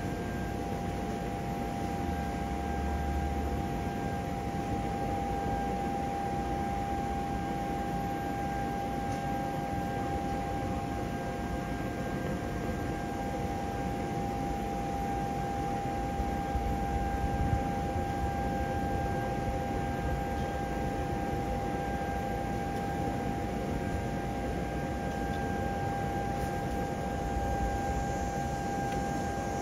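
Electric blower fan of an inflatable water slide running steadily as it inflates the slide: an even rush of air with a steady whine.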